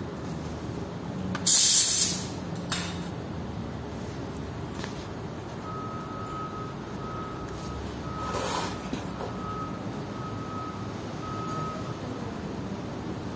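Workshop noise: a short, loud burst of hissing air about one and a half seconds in, with a few fainter hisses later, then a warning beeper sounding about six short beeps at one even pitch in the second half, over a steady low hum.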